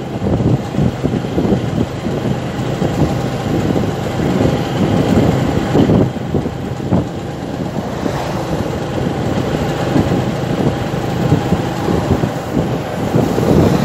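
Wind rushing and buffeting on the microphone on a moving motorcycle, with the motorcycle's engine and road noise running beneath.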